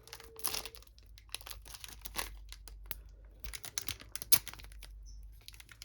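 Foil Pokémon booster pack wrapper crinkling and crackling in the hands, an uneven run of sharp crackles with one louder snap about four seconds in.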